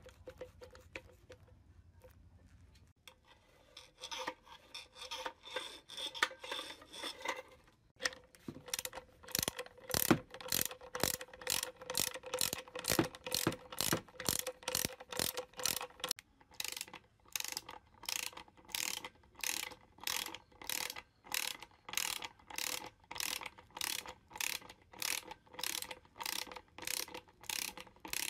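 Ratchet clicking as the tension adjuster of an ENDO EWF-9 spring balancer is turned with a socket ratchet wrench. It starts with a few seconds of soft scraping, then settles into steady sharp clicks, about two a second.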